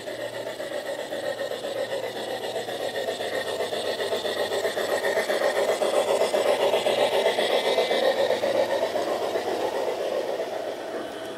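G-scale model train running along garden track: its small electric motor and wheels rolling on the rails make a steady rough whirr that swells as the train draws near, is loudest a little past the middle, and eases off as it passes.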